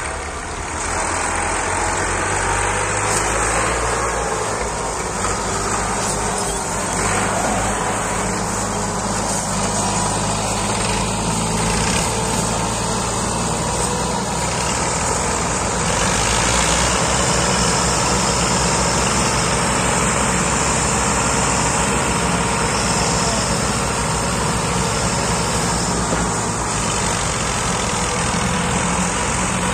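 Massey Ferguson diesel tractor engines running hard under heavy load, pulling a trolley piled with sugarcane. The note is steady and loud, and grows brighter about halfway through.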